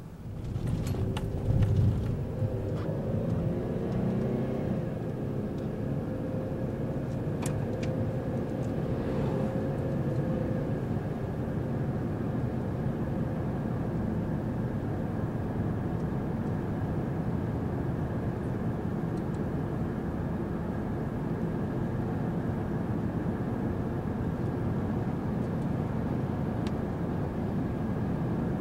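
A car driving on a paved highway, heard from inside the cabin: a steady rumble of road and engine noise. A humming engine tone stands out for the first ten seconds or so and then blends into the rumble. There are a few sharp clicks in the first seconds.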